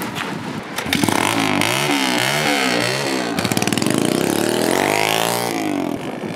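Small Kawasaki KX dirt bike engine revved in about four quick blips, then climbing steadily in pitch as the bike pulls away, and easing off near the end.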